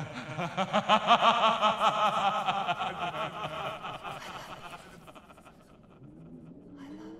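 A man laughing loudly in quick pulses, the laughter dying away after about five seconds. Near the end comes a quieter, low, drawn-out voice sound, like a sigh.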